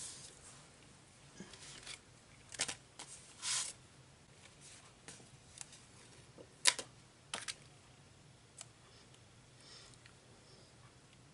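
Paper crafting handling sounds: cardstock and sticker sheets shuffled and flexed on a desk, making scattered sharp clicks and a brief paper rustle, the loudest click a little past halfway.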